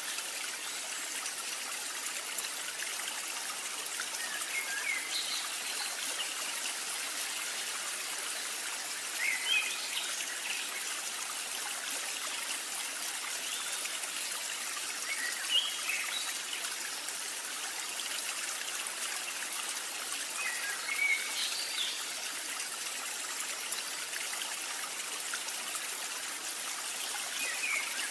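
Egg-coated potato and corned-beef patties deep-frying in oil in a wok: a steady sizzle. Short bird chirps come now and then.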